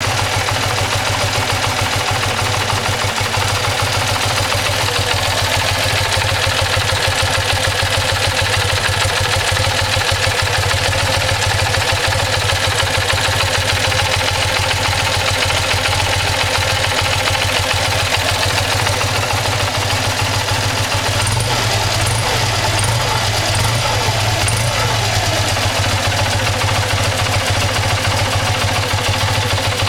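BMW R100RS air-cooled flat-twin boxer engine idling steadily while its carburettors are synchronised, its note shifting slightly for a few seconds about two-thirds of the way through.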